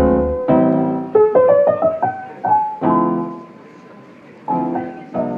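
Background music: a piano playing a run of struck notes and chords that ring and fade, with a short quieter gap near the end before the next chord.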